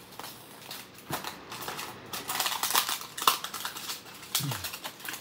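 Hands tearing open a small cardboard-and-plastic blind-box toy package. It gives a run of quick clicks, crackles and tearing sounds that grow busier about halfway through.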